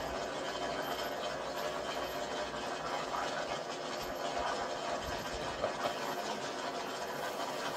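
A drag car's engine running slowly just after a burnout, heard as a steady, muffled rumble through a television speaker.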